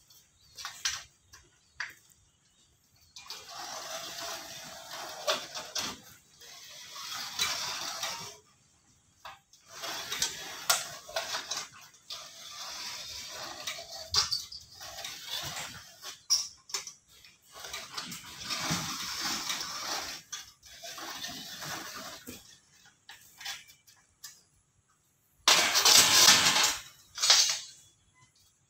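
Thin aluminium sheet being run through a hand-cranked rotary beading roller in several passes of a few seconds each, a metallic rolling and scraping, with clicks and knocks as the band is handled between passes. A loud sheet-metal rattle near the end.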